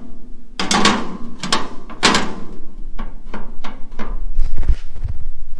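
Stamped steel brake-booster mounting plates clanking and scraping against each other and on a sheet-metal cart tray as they are laid together: heavy knocks and scrapes in the first couple of seconds, then lighter clicks.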